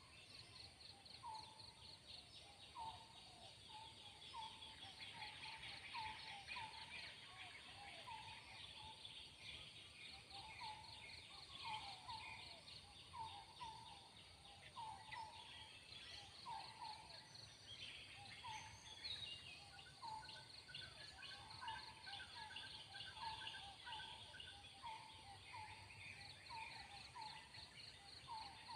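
Faint forest ambience: a bird giving short chirps over and over, about one or two a second, over a fast pulsing insect trill.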